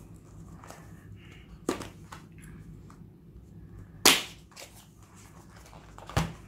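A white cardboard box being handled and opened: its paperboard flaps make a few sharp snaps and small taps, the loudest about four seconds in.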